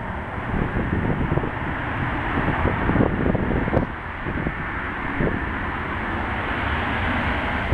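Jet engines of an Airbus A321 running as the airliner rolls along the runway, with the hiss growing a little brighter towards the end. Wind buffets the microphone throughout with gusty low rumbles.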